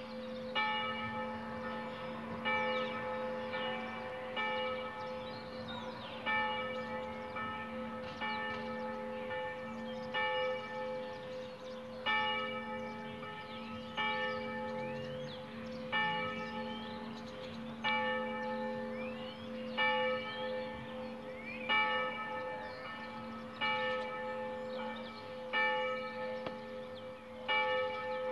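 A single church bell tolling slowly and evenly, one stroke about every two seconds, each stroke ringing on over the bell's steady hum.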